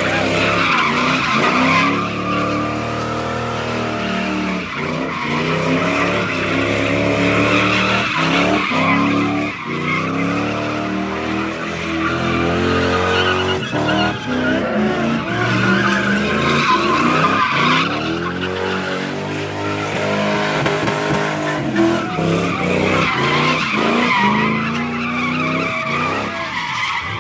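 A car engine revving hard, its pitch climbing and dropping again and again, over the hiss of tyres spinning and sliding on snow as a car drifts.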